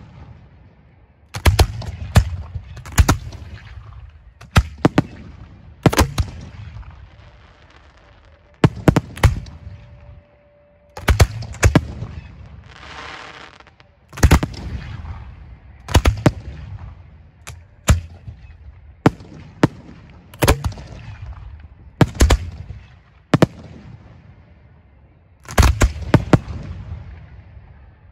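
Fireworks display shells firing from mortars: sharp bangs every one to three seconds, often two or three in quick succession, each followed by a low rumble. A brief hiss sounds about halfway through.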